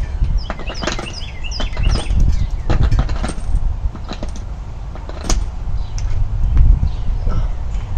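Small birds chirping in quick runs of short high notes, strongest in the first few seconds, over a steady low rumble with a few scattered knocks.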